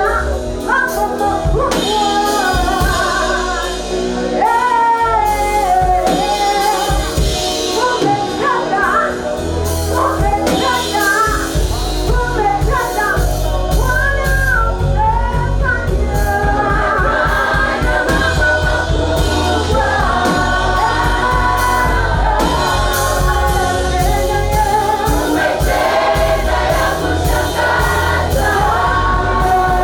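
Gospel worship song: a group of voices singing together over live band accompaniment with drums and bass. The low bass and drums become fuller about a third of the way in.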